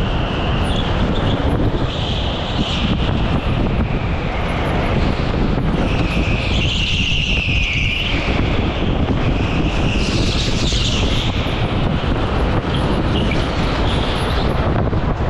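Go-kart running at race pace, heard from the kart's onboard camera: a steady drone of motor and wind rush, with high tyre squeals coming and going several times through the corners.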